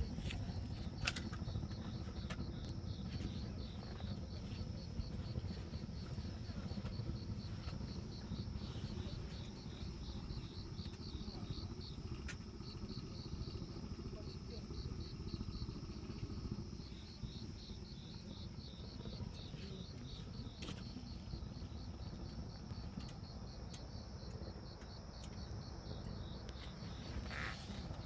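Cricket chirping in a steady, rapid trill over a low rumble, with a few sharp pops like a wood fire crackling.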